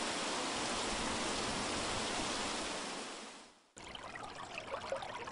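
Steady hiss of falling rain that fades out about three and a half seconds in. After a brief gap, a lighter, crackling patter of water.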